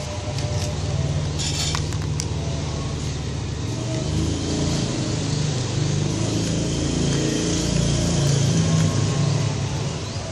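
A low, steady engine hum from a motor vehicle, shifting in pitch about four seconds in and loudest around eight seconds in.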